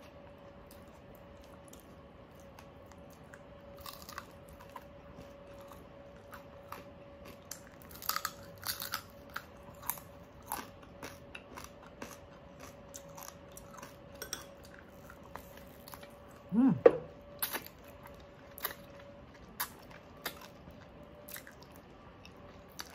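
Close-up eating sounds: crispy pata (deep-fried pork knuckle) being torn by hand and chewed, with crunching and crackling of the fried skin. The crackles are thickest about eight seconds in. A short rising tone about two-thirds of the way through is the loudest moment, and a faint steady hum runs underneath.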